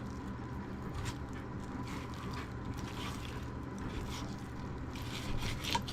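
Knife scraping and cutting through a crappie while it is being filleted, in short faint strokes over a steady low hum.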